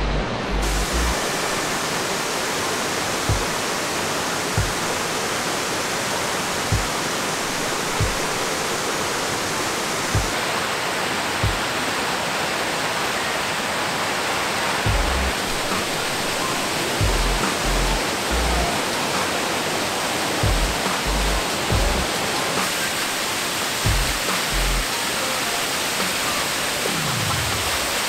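Rushing water of a stream running over rocks and into small waterfalls: a steady, even hiss. Quieter background music runs under it, with low bass thuds about every one to two seconds and held low notes in the second half.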